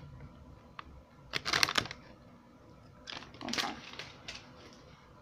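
Handling noise close to the microphone: short bursts of rustling and clicking, the loudest about one and a half seconds in and another about three and a half seconds in.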